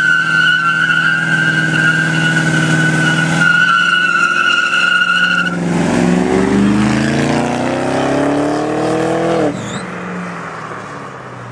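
Ford Crown Victoria's V8 with loud exhaust doing a burnout: the rear tyres squeal in one steady high pitch for about five and a half seconds over the engine. The squeal then stops and the engine revs climb as the car pulls away, until the sound drops off suddenly about nine and a half seconds in and only a fainter car sound is left.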